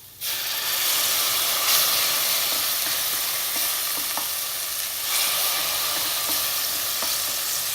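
Onion paste frying in hot oil in a pressure pan breaks into a loud, steady sizzle as a little water goes in, and keeps sizzling while it is stirred. A few faint clicks from the stirring utensil against the pan are heard.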